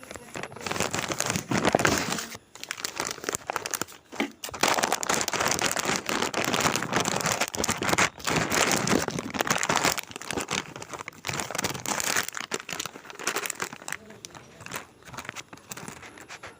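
Blind-bag packaging crinkling and rustling as it is handled and opened, in close, continuous bursts with a few short pauses, growing sparser near the end.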